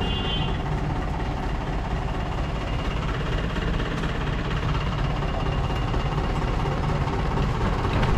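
Steady road traffic noise, with a low engine rumble from a bus and other vehicles close by. A short high-pitched tone sounds right at the start.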